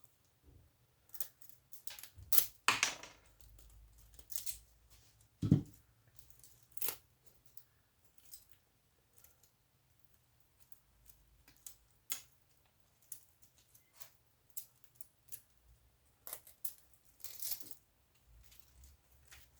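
Scattered clicks, clinks and short scraping or tearing noises from scrap electronics being pulled apart by hand to separate out the copper, with one louder knock about five and a half seconds in.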